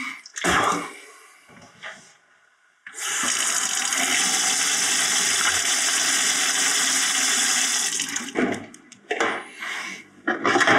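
Water running from a tap into a stainless steel kitchen sink, starting about three seconds in, running steadily for about five seconds and then cutting off. A sharp knock comes just before it near the start, and a few short clatters follow near the end.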